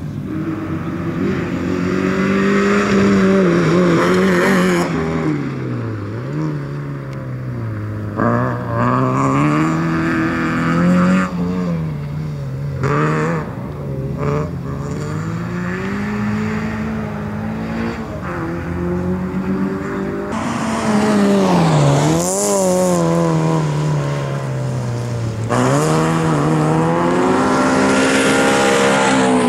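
A Fiat rally car's engine revving hard, its pitch climbing under acceleration and then dropping sharply when the driver lifts off and brakes or changes gear, over and over through a twisty course.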